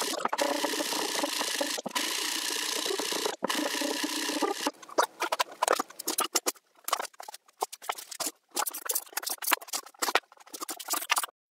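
A shop vacuum motor running steadily for the first few seconds, then plywood rings being handled and set down: irregular wooden knocks and rubbing scrapes.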